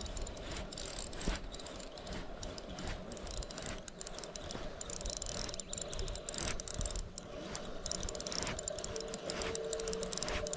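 Irregular mechanical clicking and rattling, like a ratchet, with a faint steady hum coming in near the end.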